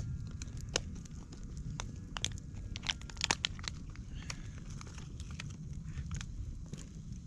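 Wood campfire burning, with irregular crackles and pops, a cluster of them about three seconds in, over a low steady rumble.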